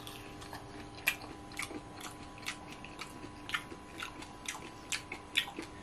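A person chewing a mouthful of pork curry and rice, the mouth giving irregular soft wet clicks, about two a second.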